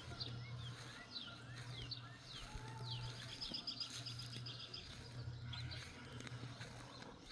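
Birds chirping faintly: a string of short falling chirps, with a quick trill of rapid repeated notes about three seconds in, over a steady low hum.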